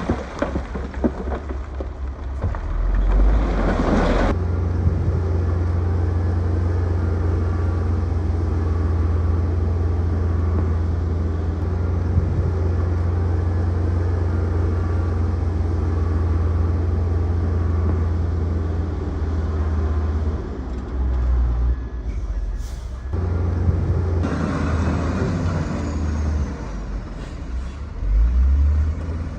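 Heavy diesel engine of earthmoving equipment running steadily with a deep rumble, with a loud rushing noise over it for the first few seconds and again near the end.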